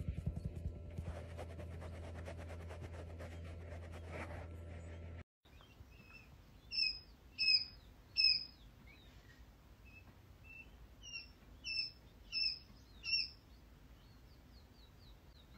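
Baby chicks peeping: about seven loud, short falling peeps in two bunches, with softer peeps between them and a quick run of faint twitters near the end. Before this, for about the first five seconds, a steady low hum with faint crackling, which cuts off suddenly.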